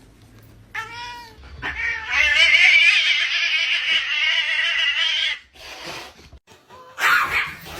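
A pet animal cries out briefly, then gives one long, loud yowl whose pitch wavers up and down.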